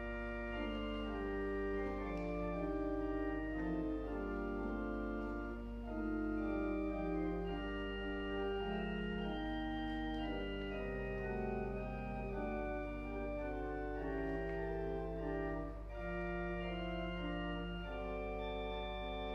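Organ music: slow, sustained chords that change every second or so.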